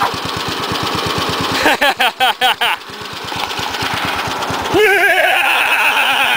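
Lawn tractor's 11 hp Briggs & Stratton engine running with a steady, rapid putter. Voices call out over it twice, about two seconds in and again near the end.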